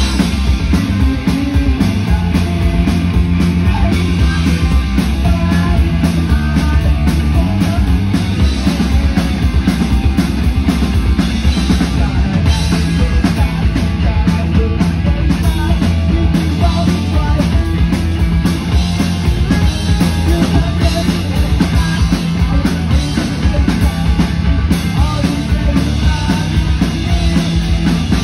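Punk rock band playing live and loud: distorted electric guitar, electric bass and a drum kit pounding out a steady fast beat.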